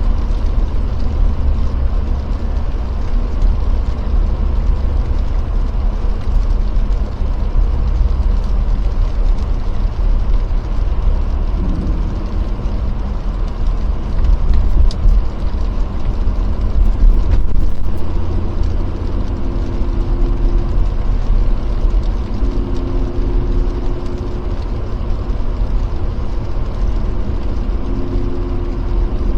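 Jeep Gladiator driving on a snow-and-sleet-covered road: a steady low rumble of engine and tyres, with a faint humming tone coming and going in the second half.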